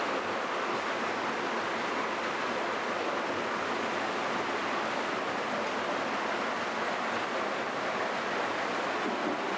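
Steady rushing of fast-flowing floodwater, an even noise that neither rises nor falls.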